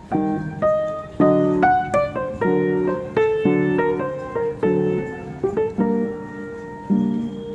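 Background instrumental music: a simple melody of separate notes, each struck sharply and fading, about two a second.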